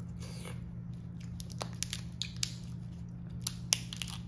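Lobster tail shell cracking and crackling as it is pulled apart by hand to pick out the meat: a run of irregular sharp snaps and clicks, the loudest near the end, over a steady low hum.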